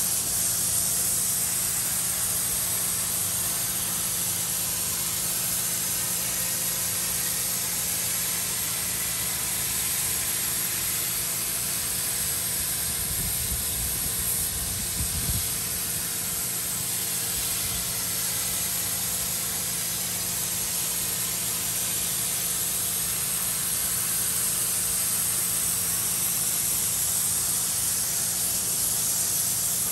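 Pressure washer spraying a jet of water onto a carpeted minivan floor mat: a steady hiss, with the pressure washer's motor humming underneath.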